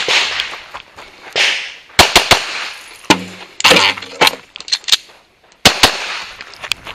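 Pistol shots fired in quick succession during a timed IDPA stage: a fast string of shots about two seconds in, another shot about a second later, and a quick pair near six seconds.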